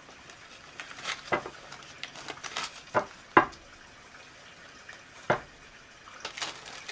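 Tarot cards being handled, shuffled and flicked or laid down: a scattering of light, irregular snaps and taps, about half a dozen.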